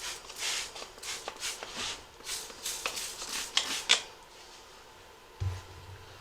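Hand spray bottle of soapy water squirted in about a dozen quick hissing bursts, wetting the tire bead and rim as a lubricant for mounting. A low thump comes about five and a half seconds in.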